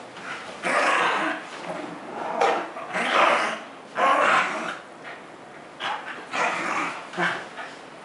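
Two dogs play-growling as they wrestle, in a string of short rough growls with brief pauses between them.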